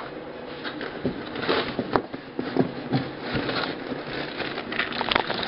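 Hands rummaging in a cardboard box and its packed contents: scraping and rustling, with several light knocks.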